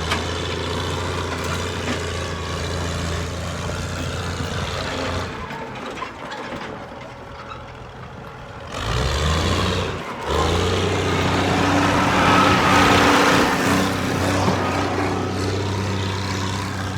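A vehicle engine runs steadily. It drops away for a few seconds about midway, then picks up again and grows louder for a stretch, with a rushing noise added.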